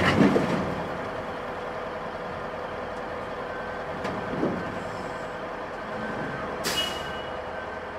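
Heavy diesel mining machines running: a loader tips a bucket of rock salt into a haul truck's bed, with a loud crash at the start. A steady engine drone follows, with a short hiss near the end.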